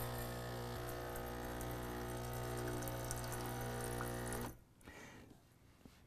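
Gaggia Velasca espresso machine priming: its vibratory pump hums steadily while water runs out of the steam wand and splashes into a stainless steel pitcher. The run stops abruptly about four and a half seconds in.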